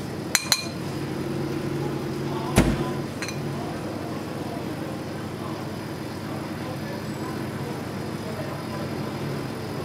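A motor running with a steady low hum, plainest in the first three seconds, with two sharp clicks near the start and a loud knock a little over two and a half seconds in.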